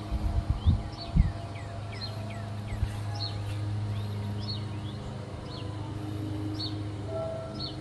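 Small birds chirping outdoors, short high calls about once a second, over a steady low hum. A few low thumps come in the first second or so.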